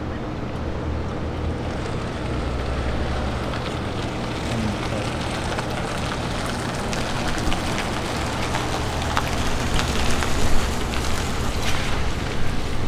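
Wind rumbling and buffeting on the camera microphone outdoors, a steady noisy rush with a low rumble. Scattered crackles and ticks join it in the second half and grow denser toward the end.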